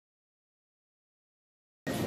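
Dead silence: the soundtrack is empty. Background room sound cuts in abruptly just before the end.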